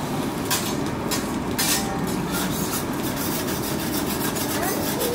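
Metal spatula scraping and chopping on a steel hibachi griddle as egg is worked: two longer scrapes in the first two seconds, then quick, light, repeated chopping, over a steady background noise.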